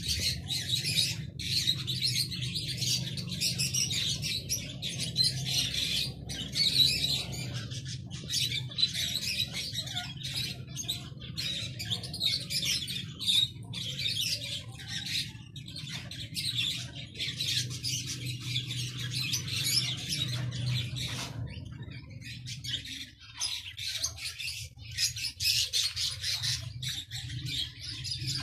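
Many small birds chirping continuously over a steady low hum, the hum dropping away near the end.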